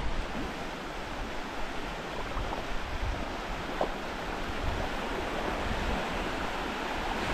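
Steady hiss of small waves breaking and washing in over a shallow sand flat at the water's edge.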